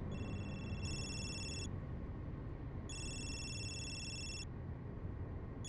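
Mobile phone ringtone, an electronic tone ringing twice, each ring about a second and a half long, over the steady low rumble of a car cabin on the move.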